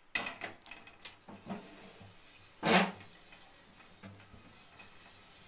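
An aluminium pan knocks and clinks as it is set down on a gas stove, with one short, loud rush about halfway through. Then a wooden spatula scrapes quietly through thin batter in the pan.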